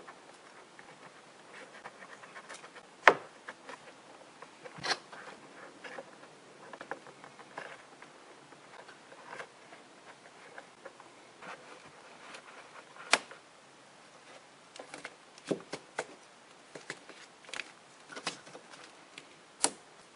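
Hands handling a small clip-on microphone, its wire and plastic interior trim: scattered light clicks, taps and rustles, with sharp clicks about 3 seconds and 13 seconds in.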